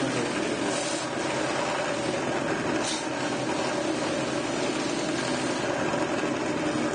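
A 180-grit abrasive sanding mop spinning at speed on its motor, its threads sanding the rough edge of a cedar board held against it. The sound is a steady whirring hum, with brief brighter scrapes about a second in and again near three seconds.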